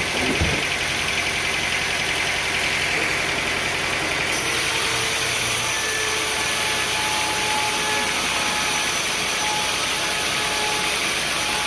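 An engine idling steadily, with a short low thump just after the start.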